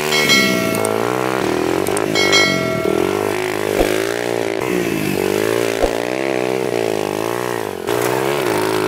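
Suzuki GN125's air-cooled single-cylinder four-stroke engine revving up and down repeatedly as the motorcycle power-slides through turns on dirt.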